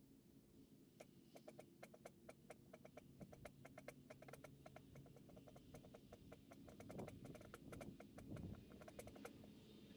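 Near silence, with faint, irregular sharp clicks, several a second, over a faint steady background hum.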